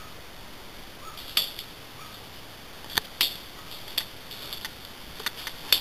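Airsoft gun firing single shots: about six sharp cracks at uneven intervals.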